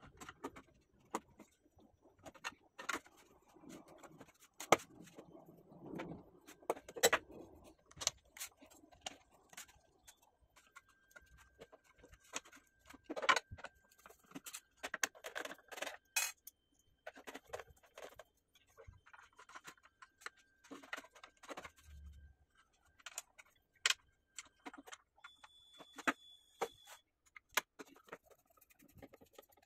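Screwdriver driving small screws into a soundbar's board bracket and plastic housing, with irregular clicks, taps and scrapes of plastic and metal parts being handled.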